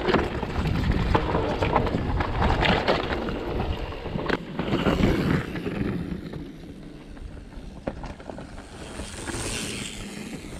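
Specialized Turbo Levo e-mountain bike rolling over a rough trail: tyres crunching and the bike rattling in quick clicks, with wind buffeting the microphone. It gets noticeably quieter about six seconds in.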